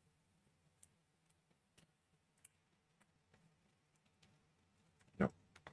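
Faint, scattered clicks of plastic Lego Technic pieces being handled and fitted together, with one louder knock near the end.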